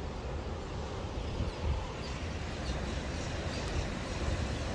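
Ocean surf breaking against rocky coast, heard as a steady rushing noise, with wind buffeting the microphone.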